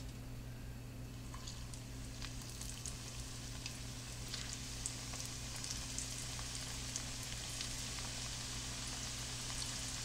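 Breaded chicken patties shallow-frying in hot vegetable oil in a skillet: a steady sizzle with scattered pops and crackles. It grows gradually fuller and louder as more patties go into the oil.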